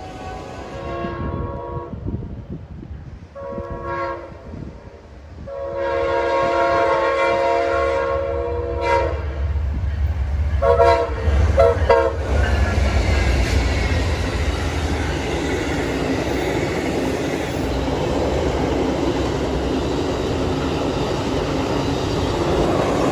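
A train horn sounds several chord blasts of uneven length: one ending about a second in, a short one, a long one of about three and a half seconds, and three quick toots near the twelve-second mark. After that the train passes, with a low rumble and steady rail and wheel noise.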